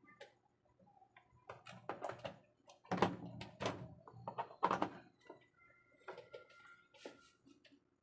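Irregular clicks, taps and knocks of small parts and tools being handled on a repair bench, busiest and loudest between about two and five seconds in, then thinning out to a few light taps.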